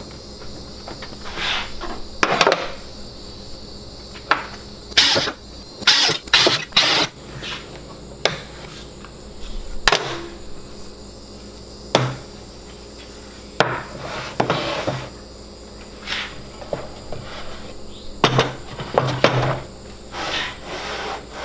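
Irregular knocks and short scraping sounds of wooden jig parts and clamps being handled and set down on a table saw and workbench.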